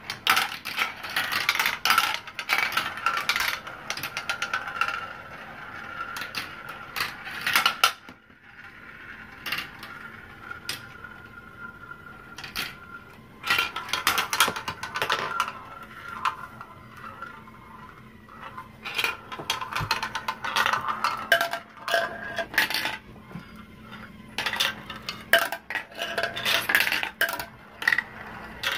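Marbles rolling and clattering through a plastic marble-run track and swirling around plastic funnel bowls. It is a busy run of clicks and rattles, with a steady whirring tone at times.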